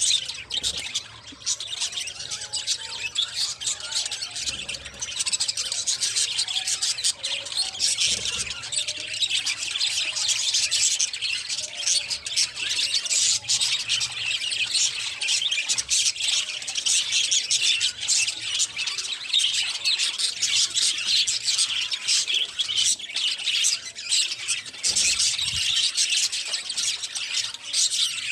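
Budgerigars chattering and chirping in a dense, continuous high-pitched warble.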